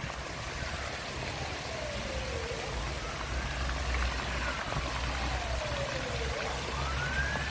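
Fountain jets spraying and splashing into a shallow basin: a steady hiss of falling water. A faint tone in the background slides slowly down and back up twice.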